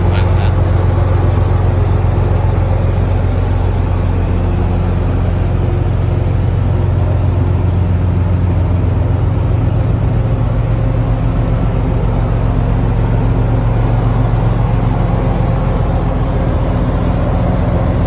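Passenger boat's engine droning steadily while under way, a low even hum over a steady rushing noise.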